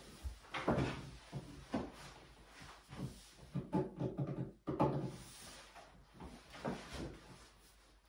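Irregular dull wooden knocks and thumps from an 18 mm birch-plywood shooting table and its bench seat as a person sits down at it and gets back up, loudest around the middle.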